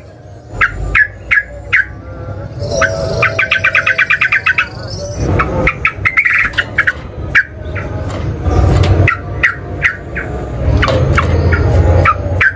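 Sooty-headed bulbul calling: a string of short sharp chirps and, about three seconds in, a fast rattling trill of about ten notes a second, over a low steady rumble.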